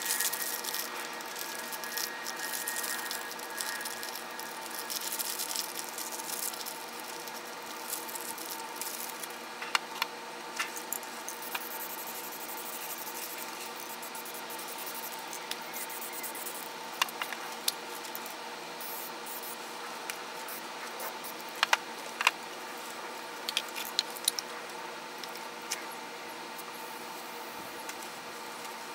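Aerosol spray-paint cans hissing, most heavily in the first third, with scattered sharp clicks and taps from cans and tools being handled, in a cluster a little past the middle.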